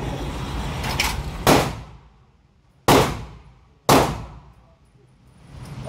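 Gunshots in an indoor shooting range: a softer shot about a second in, then three loud, sharp cracks, each ringing off the walls as it dies away. Steady background noise fades out about two seconds in.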